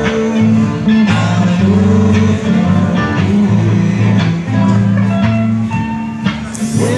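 Live rock band playing amplified electric guitars over held low bass notes, with a crash near the end.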